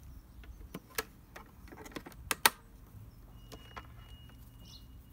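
Coiled microphone cable being handled, its connector clicking and tapping a few times, with two sharp knocks close together about two and a half seconds in.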